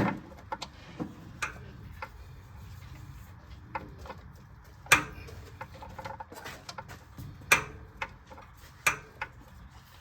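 Hand tools clinking on metal: a wrench and socket being fitted and worked onto a bolt in a tight spot, giving about a dozen sharp, irregular metallic clicks and knocks.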